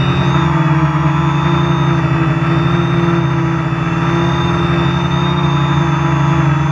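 Quadcopter's electric motors and propellers whining steadily, heard up close from a camera mounted on the drone. The pitch wavers slightly as it hovers and turns.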